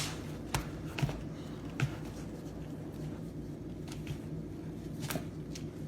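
Chicken tenders being tossed and pressed in a bowl of seasoned flour: soft rustling with a few light taps and clicks, over a steady low hum.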